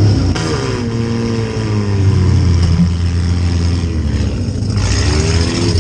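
Compact demolition derby car's engine revving, heard from inside its stripped cabin. The pitch falls over the first couple of seconds, holds steady, then climbs again near the end as the throttle is opened.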